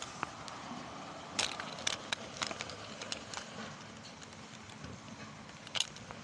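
Steady hiss of rain with several sharp clicks and knocks: a cluster about one and a half to two and a half seconds in, and one more near the end.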